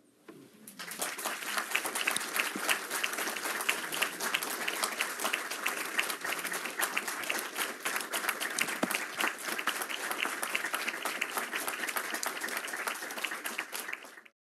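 Lecture-hall audience applauding, starting about a second in and holding steady, then cutting off suddenly near the end.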